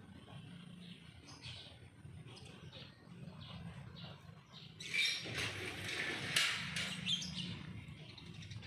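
Small birds chirping in short, repeated calls over a low steady hum. About five seconds in there is a louder noisy stretch lasting about two seconds.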